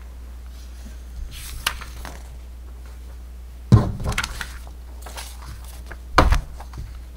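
Sheets of printed paper being lifted and flipped over by hand, rustling, with two sharp thuds, one about midway and one near the end. A steady low hum runs underneath.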